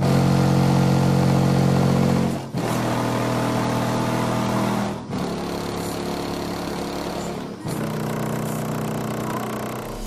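Car audio subwoofers playing heavy, distorted bass inside a Honda sedan, heard from outside at the trunk. A steady low drone that changes note about every two and a half seconds, with a short drop between notes.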